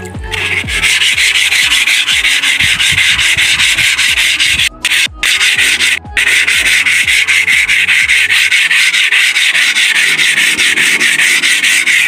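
Sandpaper rubbed by hand over the rusty sheet steel of a New Holland combine harvester's cutter, in fast back-and-forth strokes with a few short breaks around the middle. It is scouring the rust off the steel before painting.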